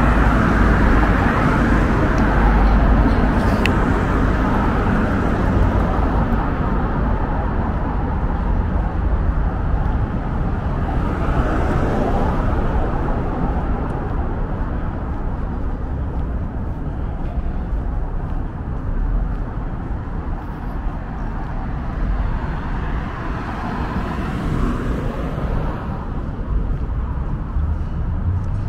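Street traffic: a steady rumble of cars, swelling as vehicles pass near the start, about eleven seconds in, and again about twenty-five seconds in.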